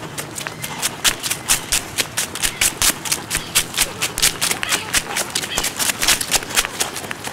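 Rapid running footsteps crunching through dry fallen leaves on a path, about four sharp crunches a second.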